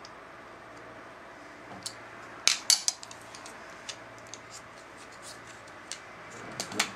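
Sharp metal clicks and clinks of a handmade bicycle rear derailleur's parts and a small hand tool being handled and fitted together, with a loud cluster of clicks about two and a half seconds in and another just before the end.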